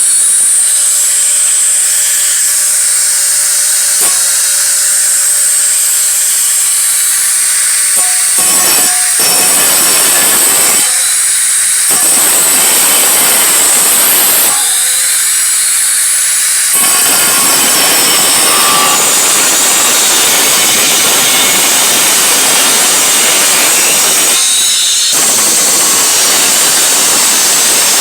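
Power grinder grinding sheet metal along a line just before a bend, running loudly and continuously, the load shifting several times as the wheel is eased off and pressed back on.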